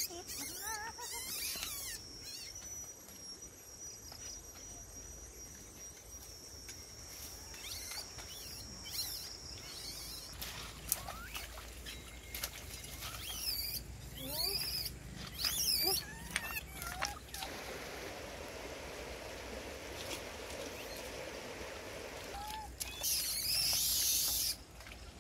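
High, squeaky animal calls come in short rising and falling glides near the start and again about halfway through. A steady high whine runs under them for the first ten seconds. A loud hiss sounds for about a second and a half near the end.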